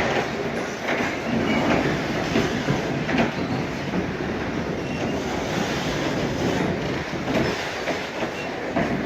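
Train cars rolling past, with a steady loud clatter of wheels over the track and a few brief high squeals of wheels on rail.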